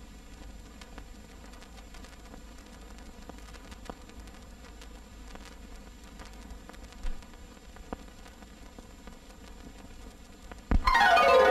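Steady hiss of an old film soundtrack with a couple of faint clicks. Near the end, loud orchestral film music with strings starts abruptly.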